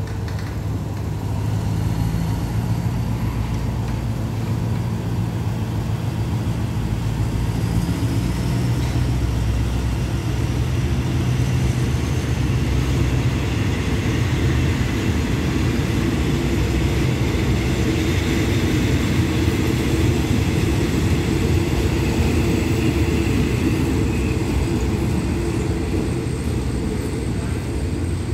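A diesel-hauled passenger train pulls out of the station. The engine drones low and the coaches roll past with a steady rumble of wheels on rail, getting louder about two seconds in, with a faint high whine above it.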